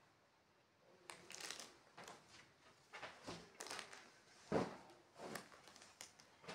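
Folded quilts and blankets being handled, rustling in short bursts, with a soft thump about four and a half seconds in as one is set down on a stack of bedding.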